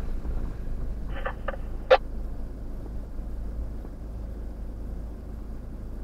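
A 4x4 driving slowly down a rough dirt track, heard from inside the cab as a steady low rumble of engine and tyres. A few light clicks about a second in, then one sharp knock just before two seconds.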